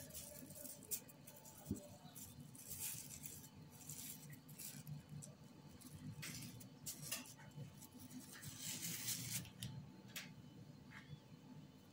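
Clear plastic wrap crinkling and rustling in short bursts as hands twist strips of dough on it, with a couple of light clicks, all faint over a steady low hum.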